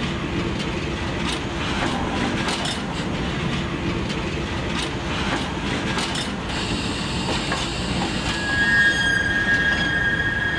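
A moving train heard from down in its undercarriage: loud running rumble and rattling of wheels on rail, joined about eight seconds in by a steady high-pitched wheel squeal.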